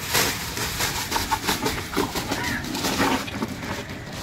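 Plastic toy dinosaurs clattering into a plastic toy dump truck as they are tipped out of a plastic bag, a run of many quick clicks and knocks, with the bag rustling.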